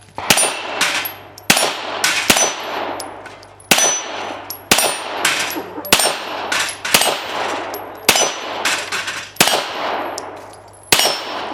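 Pistol shots fired in a string at steel plate targets, some fifteen shots at uneven spacing, roughly one or two a second, with the high metallic ring of struck steel plates after the hits.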